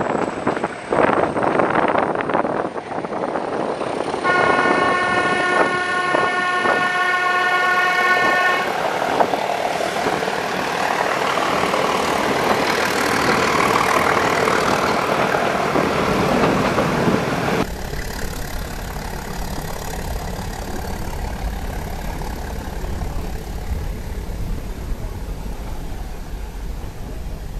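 Nilgiri Mountain Railway train running, its wheels clattering on the track, then one long blast of the train's horn for about four seconds. A steady rush of running noise follows. Later the sound drops suddenly to a quieter low rumble with wind.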